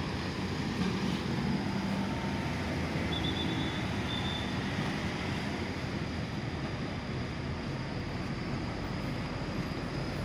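Steady outdoor traffic noise with a low engine hum from vehicles idling and moving around a bus terminal.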